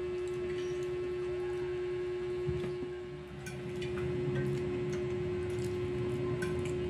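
A steady single-pitched electrical hum, with a few faint clicks of a fork against a plate.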